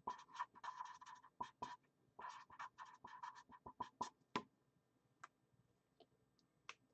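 Faint scratching of a pen writing on paper: a run of short, irregular strokes for about four and a half seconds, then a few soft isolated clicks.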